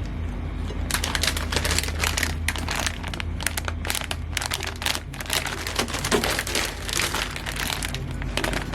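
Plastic packaging crinkling and rustling as it is handled, a dense run of irregular crackles starting about a second in.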